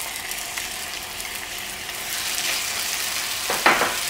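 Octopus and pak choy tipped from a bowl into a hot pan of konjac noodles, sizzling in the oil; the sizzle grows louder about two seconds in. A short, louder sound comes about three and a half seconds in.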